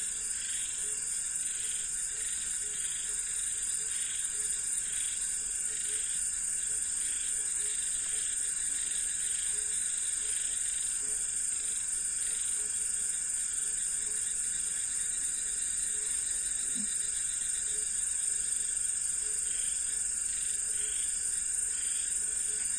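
Night insect chorus: crickets keep up a steady, high-pitched drone, with a softer call pulsing at an even pace underneath.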